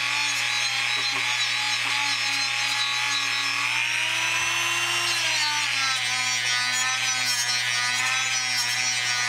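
Dremel rotary tool spinning a Scotch-Brite abrasive pad against a metal pan to polish it: a steady motor whine with the scrub of the pad on the metal. The pitch rises a little about four seconds in and drops back about a second and a half later.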